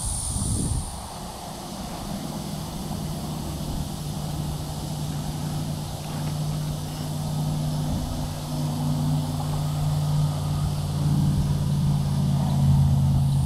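A distant engine running, a steady low hum that slowly grows louder toward the end, over faint outdoor hiss.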